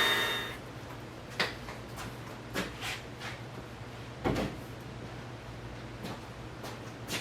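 A dual-action polisher winding down and stopping, followed by a few scattered light knocks and clicks.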